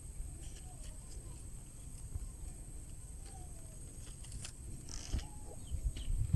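Faint, scattered chicken calls, a few short sliding notes, over low rumbling noise and small clicks.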